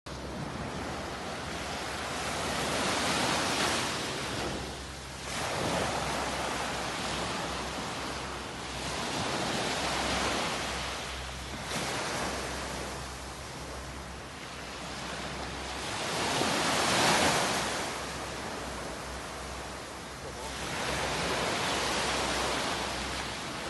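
Small waves breaking and washing up a sandy beach, the surf swelling and falling back every few seconds, with one louder wave about two-thirds of the way through.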